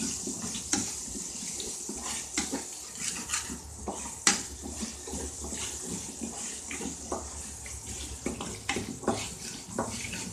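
Shallots sizzling as they fry in oil in a nonstick kadai, with a spoon scraping and knocking against the pan in quick irregular strokes as they are stirred.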